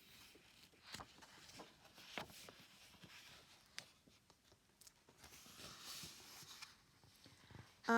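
Faint rustling and light taps of paper, as a picture book's pages are handled, over quiet room tone.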